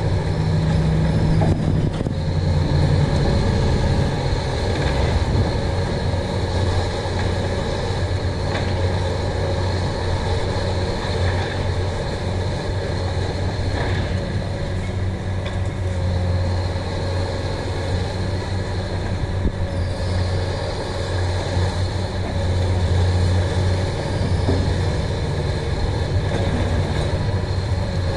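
Heavy diesel demolition machinery running steadily, a deep constant engine drone, with a few faint knocks of concrete being broken.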